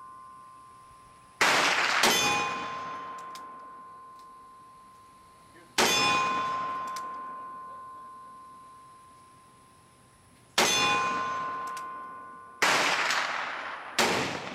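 Steel cowboy silhouette targets hit by bullets from a .32 H&R Magnum revolver firing black-powder loads. There are about five hits, each a sharp clang that rings on and fades over several seconds. The last two come about a second and a half apart.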